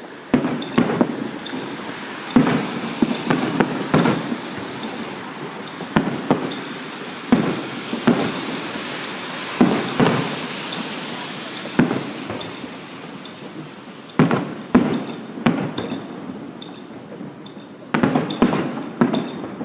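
Fireworks going off: sharp bangs at irregular intervals, with a crackling hiss through the middle stretch and a quick cluster of bangs near the end.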